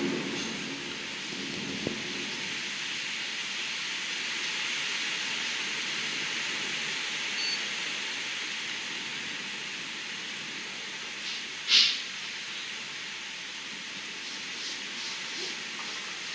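Downburst thunderstorm: driving rain and wind making a steady hiss against a window, with the last of a thunder rumble fading at the start. A single sharp knock about twelve seconds in is the loudest sound.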